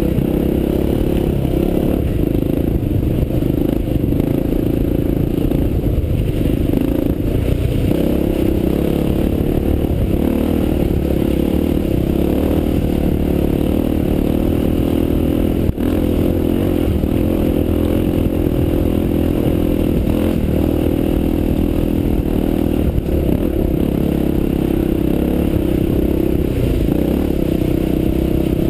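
Honda XR400's air-cooled single-cylinder four-stroke engine running as the dirt bike is ridden off-road, heard close up from the bike.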